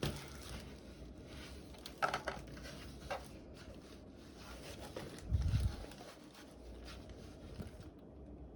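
Packaging being handled during an unboxing: irregular rustling and scraping with scattered sharp clicks, and a low thump about five seconds in.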